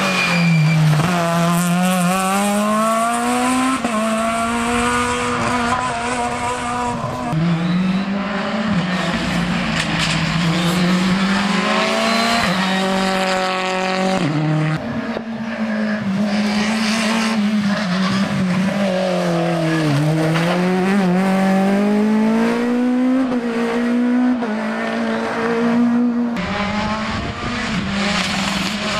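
Rally car engine driven hard, its pitch repeatedly climbing under acceleration, then dropping at gear changes and lifts.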